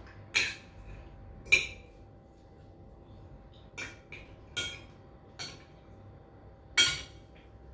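Metal fork and spoon clinking and scraping against a ceramic plate while eating: about six sharp clinks with a short ring, the loudest about a second and a half in and near the end.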